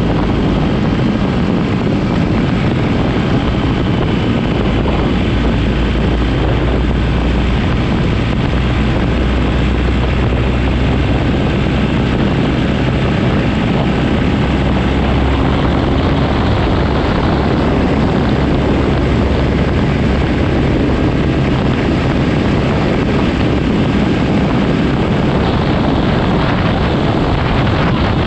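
Motorcycle at road speed: the engine running under a steady rush of wind over the microphone, heaviest in the low end.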